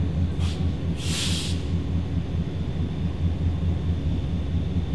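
Diesel locomotive engine running steadily, a low even drone. A short burst of air hiss comes about a second in.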